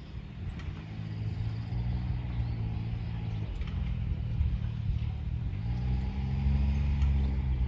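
Lexus GX470's V8 engine running at low revs as the SUV drives a rocky trail. The engine note dips about three and a half seconds in and climbs again around six seconds, with faint clicks and knocks over it.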